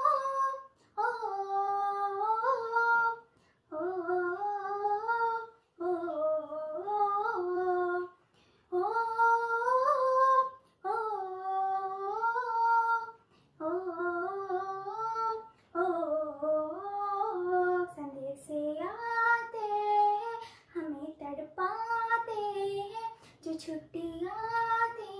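A girl's solo voice singing a Hindi patriotic song unaccompanied, in short melodic phrases separated by brief breaths.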